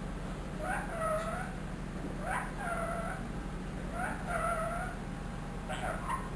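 Ringneck parrot repeating the same short call or mimicked word four times, about every second and a half; each starts with a quick upward sweep and then holds a wavering tone. A steady low hum runs underneath.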